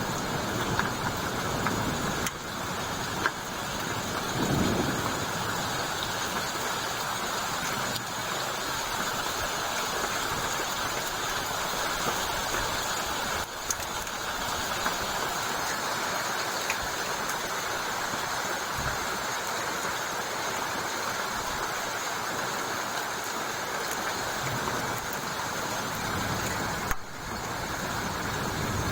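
Heavy rain falling in a steady hiss, with a few brief low swells.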